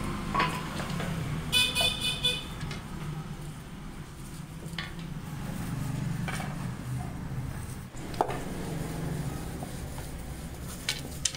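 A short, pulsing vehicle horn toot about one and a half seconds in, over a steady low rumble, with a few scattered knocks.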